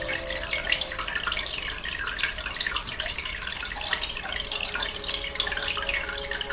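Aquarium water bubbling: a steady, dense patter of small bubbles and splashes.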